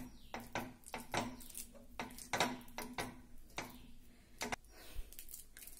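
Orange plastic fork mashing steamed banana in a ceramic bowl: a string of soft, irregular taps and scrapes against the bowl, about three a second.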